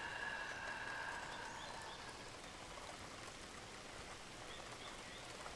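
Steady light rain falling, with a few faint short bird chirps about a second and a half in and again near the end. A high ringing tone fades away over the first two seconds.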